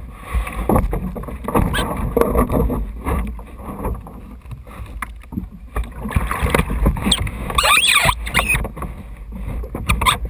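Water sloshing and splashing around a kayak, with hollow knocks and a steady low wind rumble on the microphone. A brief high warbling sound comes about eight seconds in.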